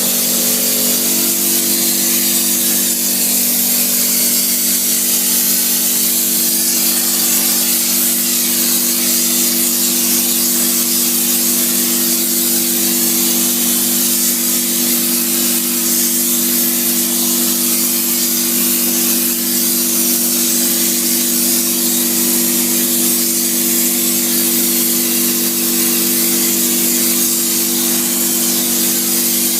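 Spray insulation equipment running: a steady hiss of spraying over an even machine hum.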